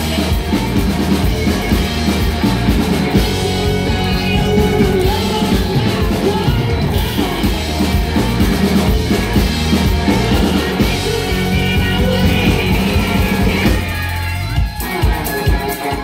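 Live rock band playing loud: electric guitar, bass guitar and drum kit with lead vocals. A little before the end the steady low bass notes stop and a few separate hits follow as the song comes to a close.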